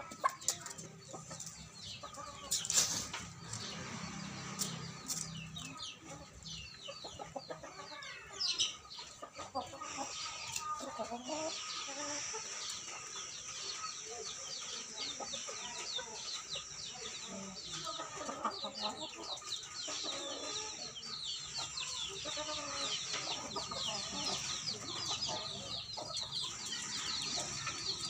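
Chickens clucking and calling. From about ten seconds in, a dense run of short, high, falling chirps sounds over a steady high drone.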